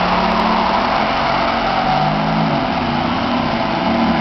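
Ferrari F430's V8 engine running at low speed as the car rolls slowly along, its pitch rising and falling a little in the second half.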